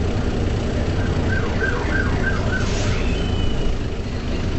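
Mercedes-Benz O405 city bus running along the road, heard from inside the cabin: a steady low diesel engine drone with road noise. About a second in, a run of five short high chirps comes about three a second, then a brief high whistle-like tone.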